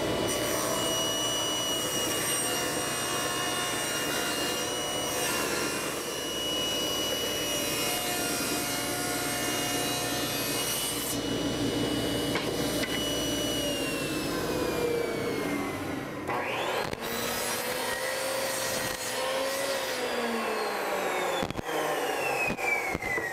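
Table saw running and ripping a board lengthwise into a strip, the blade whining steadily under the cut. About two-thirds of the way through, a miter saw spins up, cuts a board, and winds down with a falling whine near the end.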